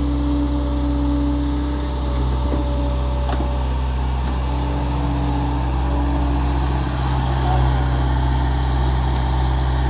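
Liebherr 900 wheeled excavator's diesel engine running steadily while it digs and lifts soil, with a couple of faint knocks about two to three seconds in.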